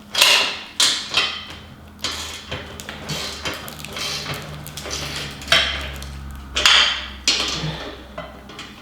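Bendy-head ratchet and wrench tightening the nuts on a steel cart's tow handle bolts: a string of irregular metallic clicks and clinks from the ratchet strokes and tools against metal.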